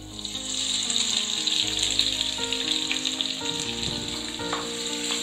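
Sliced onions sizzling as they hit hot ghee and oil in a pressure cooker, frying steadily, with a few light clicks of a steel ladle stirring them in the second half.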